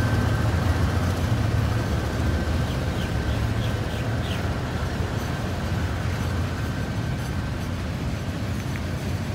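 KTM Kargo container freight train pulling away: the diesel locomotive's low, steady engine rumble mixed with container wagons rolling past, slowly fading as the locomotive draws off.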